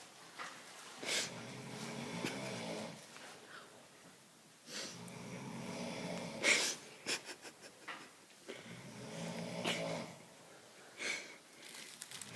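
Heavy snoring: a long buzzing rumble on each breath, about every three to four seconds, with short sharp snorts between, a snore likened to a motorcycle engine.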